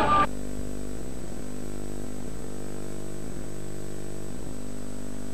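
Music cuts off abruptly just after the start, leaving the steady buzzing hum and faint hiss of a blank stretch of videotape.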